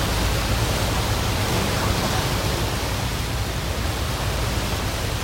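Steady rushing noise of churning wake water, with a low rumble underneath.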